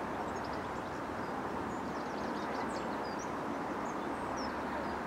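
Steady, distant running noise of an approaching Southern Class 313 electric train, with small birds chirping repeatedly over it.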